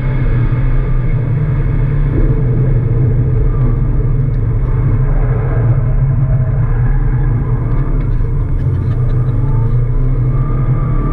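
Subaru Impreza WRX's turbocharged flat-four boxer engine running hard, heard inside the cabin, its note rising and falling as the car is driven.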